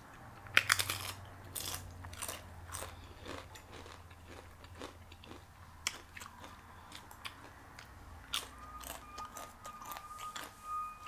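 Close-miked eating: chewing with scattered sharp clicks, the loudest a cluster about a second in, over a low hum. A faint steady whine starts near the end.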